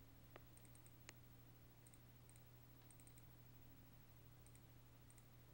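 Near silence: a faint steady low hum, with two faint computer mouse clicks about half a second and a second in, and scattered faint high ticks in small groups.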